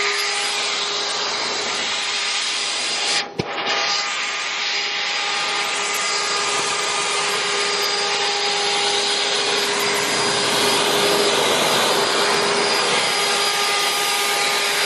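EGO 575 CFM 56-volt cordless leaf blower running: a steady rush of air with a steady motor whine as it blows water off a car's painted hood. The sound dips for an instant about three seconds in.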